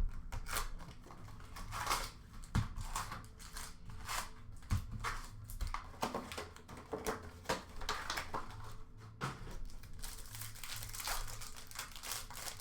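Hockey card packs being torn open by hand: wrappers crinkling and tearing in many short, irregular rustles.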